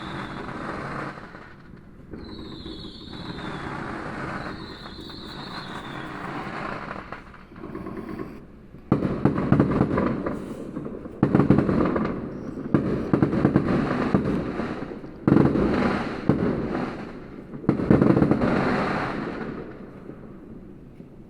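Fireworks going off. In the first few seconds there are short high whistles over a hissing crackle. From about nine seconds in come four loud bangs, each trailing off in a couple of seconds of crackle.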